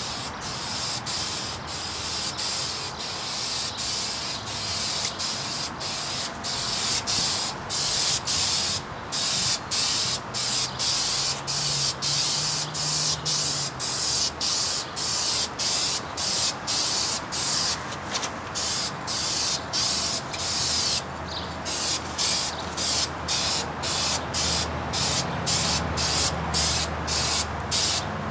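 Krylon aerosol spray paint can hissing as the nozzle is pressed, in a run of short bursts broken by brief pauses, about one or two a second, as a coat of paint is laid on.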